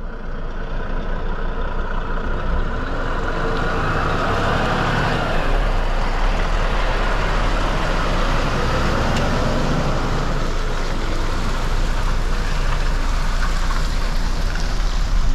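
Steady road noise of a vehicle on the move: a low rumble with tyre and wind noise, swelling over the first few seconds and then holding.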